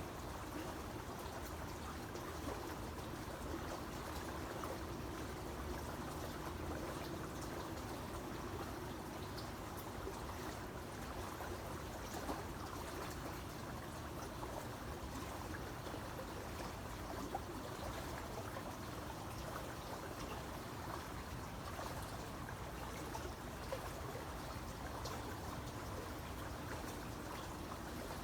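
Creek water flowing and trickling over stones, a steady even wash of running water.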